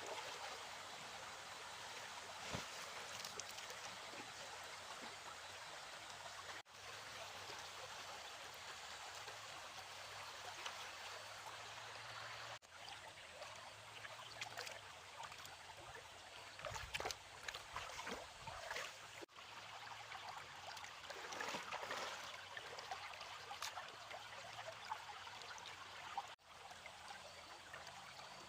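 Water flowing and trickling steadily, with occasional small splashes, more of them in the second half.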